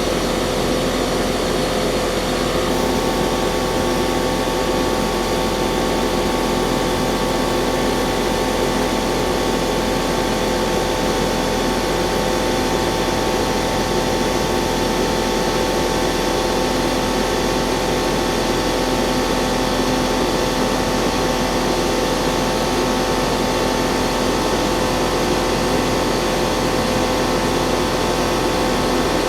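Trane XL16 heat pump running in heating mode, a steady mechanical hum with several steady tones; about three seconds in, a higher whine joins and holds. The unit is short cycling in heat.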